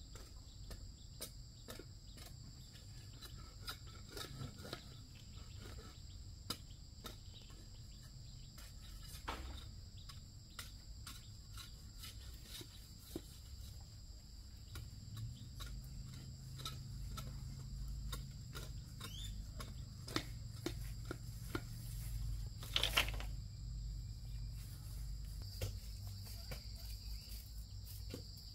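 Insects, most likely crickets, keeping up a steady high-pitched chirring, with scattered light clicks and one louder crackle about two-thirds of the way through.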